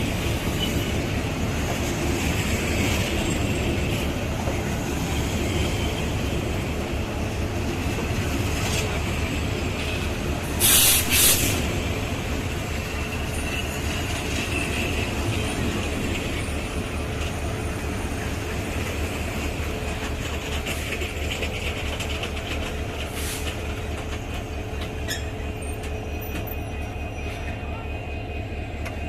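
A Bangladesh Railway passenger train rolling through the station, its wheels running steadily on the rails. About eleven seconds in there is a short, loud hiss of air, and a fainter one later.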